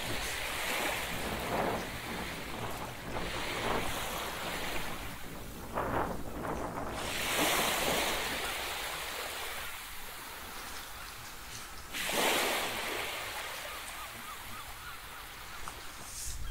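Ocean waves breaking and washing in, the surf noise swelling and fading every few seconds, with wind on the microphone.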